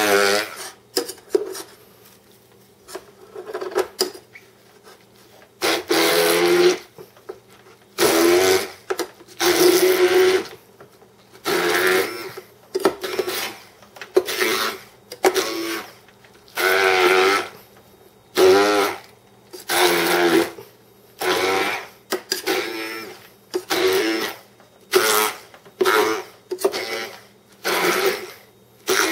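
Handheld stick (immersion) blender puréeing boiled cauliflower in a stainless steel saucepan. It runs in about twenty short on-off bursts, each a second or less with brief pauses between, and its motor pitch wavers within each burst.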